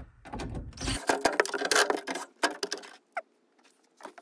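Irregular clicks and rattles of a cordless drill and metal hardware being handled over the fuel pump opening. After about three seconds it drops to near silence, broken by one short falling squeak.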